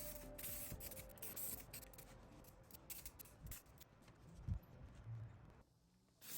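Faint hand-work noises: a run of small clicks and rubbing. They stop briefly to near silence near the end.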